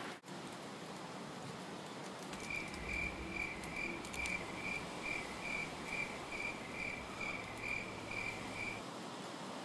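A cricket chirping in a steady run of short, evenly spaced chirps, about two a second, over a faint low hum. The chirps start a couple of seconds in and stop shortly before the end.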